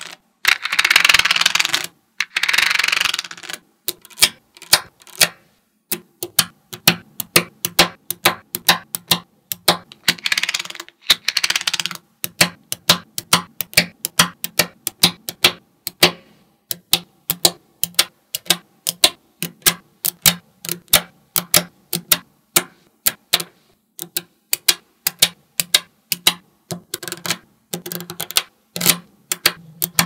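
Small magnetic balls clicking as rows of them snap onto a block of balls, in quick runs of sharp clicks. A few longer rattling, scraping stretches near the start and about ten seconds in, as balls slide and roll against each other.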